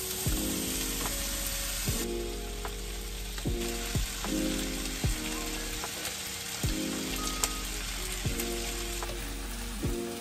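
Gnocchi, spinach and cherry tomatoes sizzling in a frying pan, stirred with a spatula. Soft background music with a steady beat plays underneath.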